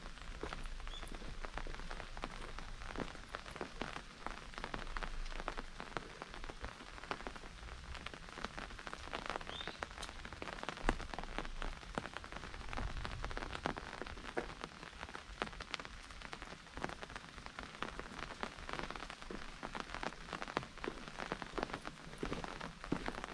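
Steady rain falling, a dense patter of individual drops over an even hiss of rainfall.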